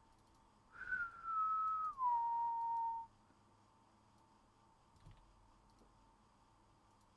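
A person whistling two notes: a higher note that sags a little, then a glide down to a lower note held for about a second before it stops.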